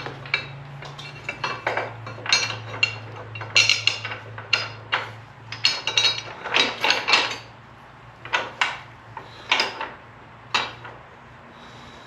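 Repeated metal clinks and clanks of gusset brackets, bolts and hand tools being handled and fitted against a side-by-side's frame. They come thick and fast for about the first seven seconds, then only a few more follow, with a steady low hum underneath.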